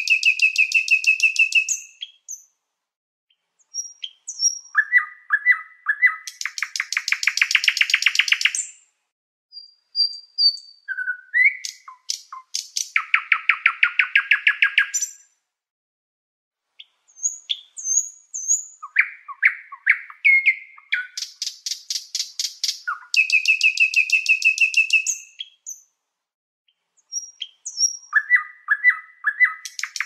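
A songbird singing: phrases of fast, even trills a second or two long, at changing pitches, separated by short pauses and scattered single chirps.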